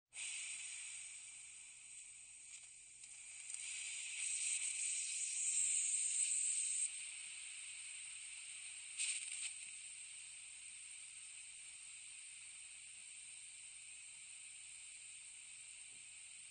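Compressed air hissing out of an air tank through a slow leak. The hiss swells about four seconds in and drops back suddenly near seven seconds. It spurts briefly around nine seconds, then holds steady and fainter.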